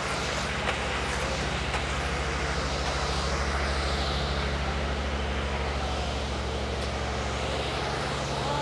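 Laser screed machine's engine running steadily as it levels fresh concrete, with a low, even drone and a constant mechanical noise.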